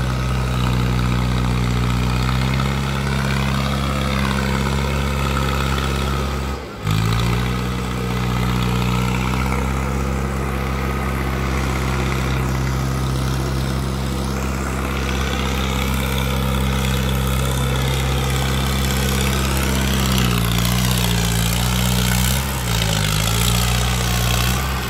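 Mahindra Arjun 555 DI Power Plus tractor's diesel engine running steadily, with a brief break about a quarter of the way in. Its pitch dips and wavers a few times near the end.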